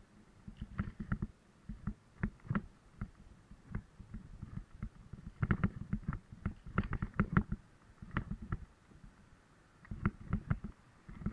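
A bicycle rattling and knocking irregularly as it rolls over uneven road surface, with busier clusters of knocks about halfway through and again near the end.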